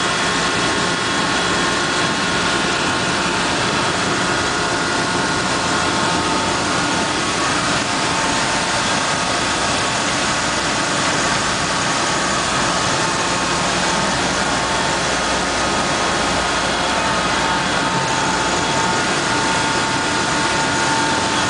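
Grain truck's engine running steadily to drive the hydraulic dump hoist as the box tips, with rye grain pouring from the tailgate chutes onto the pit grate. A continuous rushing noise carries a few steady whining tones.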